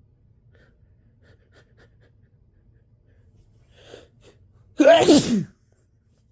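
A person's induced sneeze: a few faint catching breaths build up, then one loud spray sneeze about five seconds in, its voiced cry falling in pitch.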